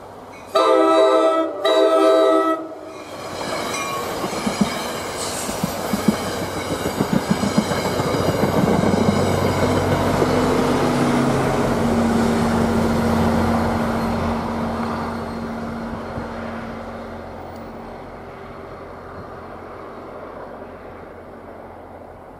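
An NJ Transit commuter train's air horn sounds two blasts of about a second each. The train then passes close by, its wheels clicking rapidly over rail joints. The GP40PH-2B diesel locomotive's steady engine drone is loudest as it goes by, then the rumble slowly fades.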